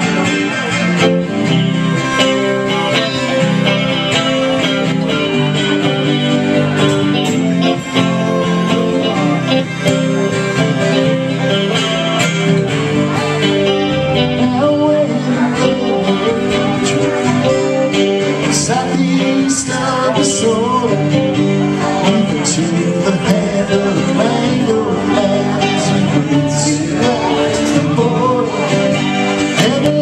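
Live music from an acoustic guitar and a hollow-body electric guitar playing a country-style song without pause.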